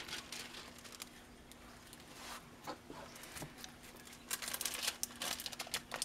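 Hands smoothing and pressing the clear plastic cover film on a diamond-painting canvas: soft crinkling and rustling with scattered light clicks, busier near the end.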